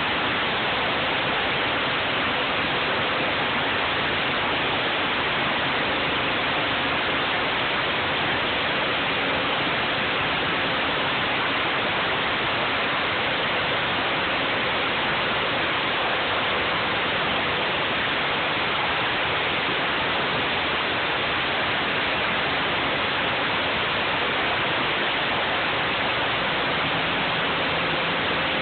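Pressure washer jet spraying water onto concrete: a constant, even hiss with a faint steady hum underneath.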